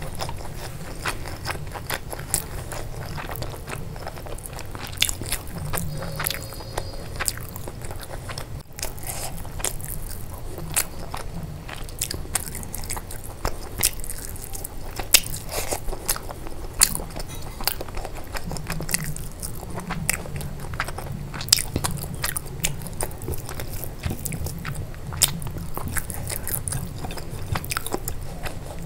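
A person biting and chewing crunchy fried food close to the microphone, with many sharp crunches and clicks throughout.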